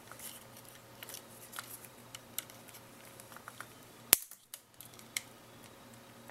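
Small plastic clicks as a nylon zip tie is worked tight around a 9-volt battery. A single sharp snap about four seconds in, the loudest sound, as side cutters cut off the tie's tail.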